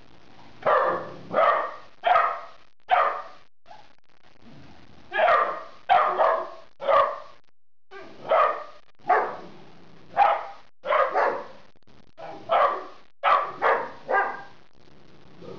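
A dog barking repeatedly: about sixteen sharp barks in four short bursts of three to five, with brief pauses between the bursts.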